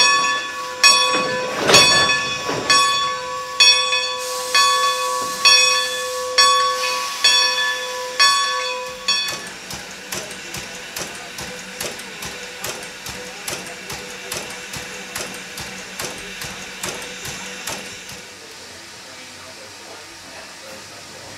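Steam locomotive bell on a 1924 Baldwin 2-10-0 Decapod ringing steadily, a little over one strike a second, and stopping about nine seconds in. After that the standing locomotive hisses steam with a fast, steady mechanical pulsing, which fades to a plain steady hiss near the end.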